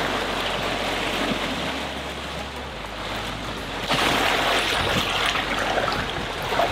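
Sea water rushing and foaming along a moving sailboat's hull and wake: a steady loud wash that grows louder about four seconds in.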